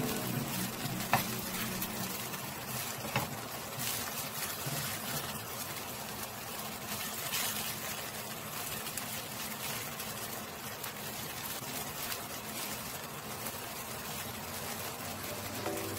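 Toon-leaf pancakes frying in oil in a nonstick pan: a steady sizzling hiss, with a couple of light spatula clicks in the first few seconds.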